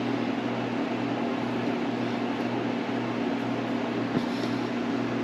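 Steady low motor hum with an even hiss over it, and one small click about four seconds in.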